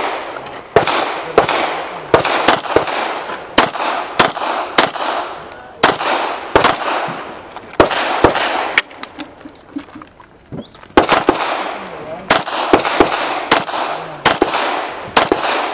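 Semi-automatic pistol firing a long string of shots, roughly one every half second, each crack trailed by a short echo. The shooting pauses for about two seconds two-thirds of the way through, then resumes.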